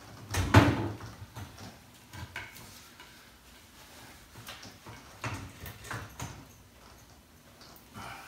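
Metal knocks and clinks from hand work on a motorcycle's engine and frame. One loud knock comes about half a second in, then a scattering of lighter taps and clicks.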